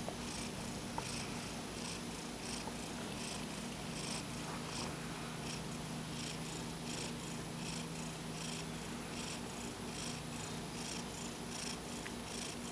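A sleeping cat snoring: soft, rasping breaths repeating in a steady, quick rhythm.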